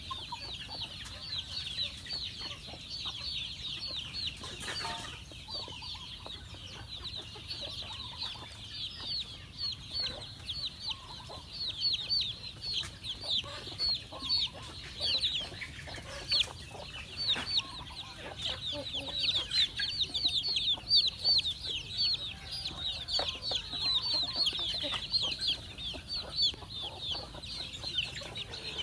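A flock of chickens calling continuously: many overlapping short, high chirps, busier and louder in the second half.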